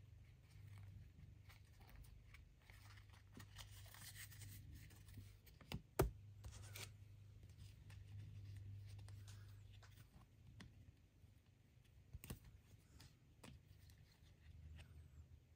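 Faint rustling and sliding of trading cards being handled, with light taps of hard plastic toploader card holders and one sharp click about six seconds in, over a low steady hum.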